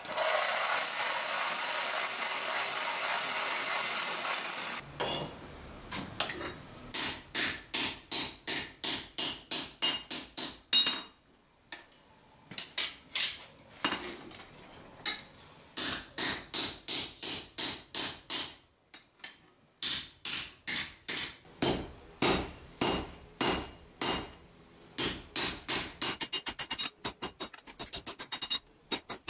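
For the first few seconds there is a steady rushing hiss from the charcoal forge. Then a hand hammer forges a hot steel knife blank on an anvil in runs of blows, about two or three a second with short pauses. Near the end the blows turn to quicker, lighter taps.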